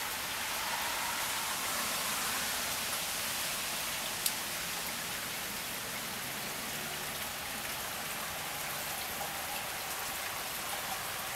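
Steady rain falling, an even hiss, with one sharp click about four seconds in.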